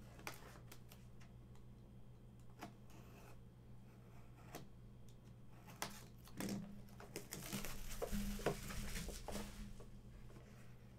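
Trading cards and their packaging being handled: scattered light clicks and taps, with a longer stretch of crinkling and rustling about six to nine seconds in.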